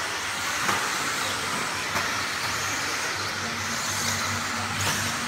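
Electric RC stock buggies running on an indoor track: a steady mix of motor whine and tyre noise under a low hum, with a few sharp knocks, about a second, two seconds and near five seconds in.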